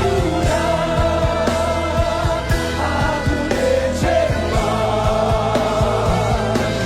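Live gospel worship music: voices singing long held notes over a band with a steady drumbeat.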